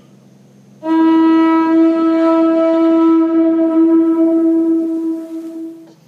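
Conch shell trumpet (atekokoli) blown in one long, steady note that starts about a second in and stops near the end, sounded as a call.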